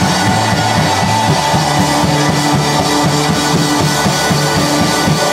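Live rock band playing loud: electric guitars, keyboard and drum kit together, with a steady beat.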